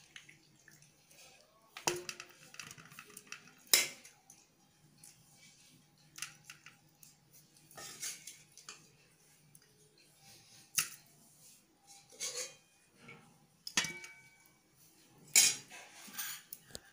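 A metal spoon clinking and knocking against a metal pot in scattered, irregular strokes every second or two as chicken curry pieces are spooned onto a layer of rice.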